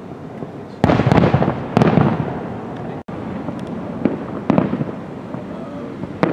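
Aerial fireworks shells bursting in a display finale. Two heavy booms come about a second in and just before two seconds, each trailing off in a rumbling echo, and smaller sharp reports follow near the middle and end.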